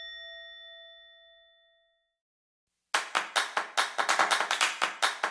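A bell-like ding sound effect rings and fades away over about two seconds. After a second of silence, a fast run of sharp percussive hits starts, several a second.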